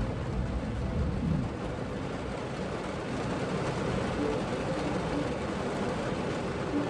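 Heavy rain beating on a car's roof and windows, heard from inside the closed car as a steady hiss, with a low rumble in the first second or so.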